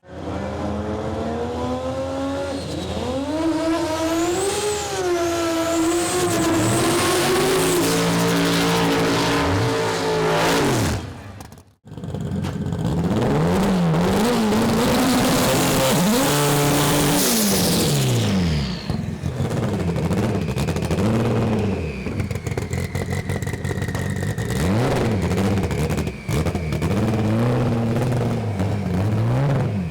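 Drag race car engines revving hard, the pitch climbing and falling again and again. The sound cuts off suddenly about twelve seconds in, then the revving starts again.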